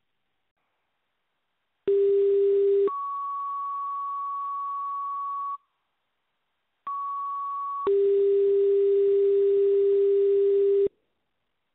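Fire dispatch radio sending two-tone sequential paging tones to alert fire station pagers. First comes a low tone for about a second, then a higher tone held for a couple of seconds. After a short gap comes a second page: the higher tone for about a second, then the low tone held for about three seconds.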